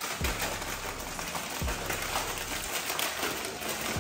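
Foil snack bags crinkling and rustling as they are handled and pushed into the spiral coils of a snack vending machine, with a couple of soft knocks and a steady low hum underneath.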